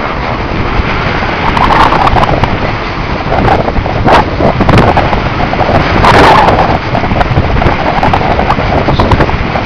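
Wind buffeting the camera microphone in uneven gusts, with scattered clicks and knocks throughout.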